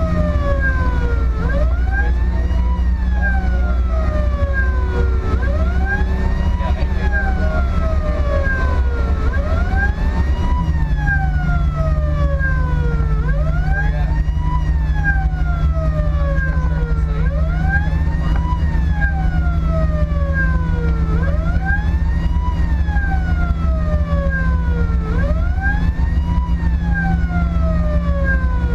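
Fire truck's electronic siren in wail mode, heard from inside the cab: the tone rises quickly and falls slowly, about once every four seconds. Beneath it, the steady drone of the truck's engine and road noise, whose note steps down about ten seconds in.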